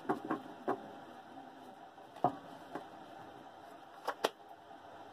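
Faint, scattered taps and flicks of a tarot deck being handled and shuffled in the hands, with two sharper clicks about four seconds in.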